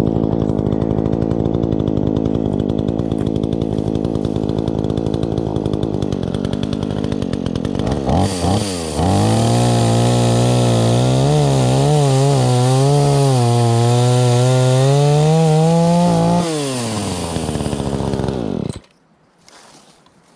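Craftsman S205 46cc two-stroke chainsaw running steadily, then throttled up about eight seconds in to cut a larger log. The pitch wavers as the chain loads in the wood, drops back after the cut, and the engine cuts off near the end.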